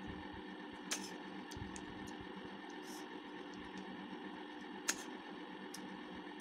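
Faint eating sounds at a bowl of cooked snails: a few small clicks, the two sharpest about a second in and just before five seconds, over a steady low background hiss and hum.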